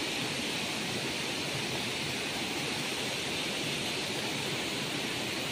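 Steady rushing noise of a rain-swollen waterfall, with rain falling on the pool.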